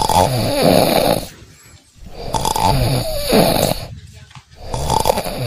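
A man snoring loudly in long, drawn strokes. Three snores come a little over two seconds apart, the third starting near the end.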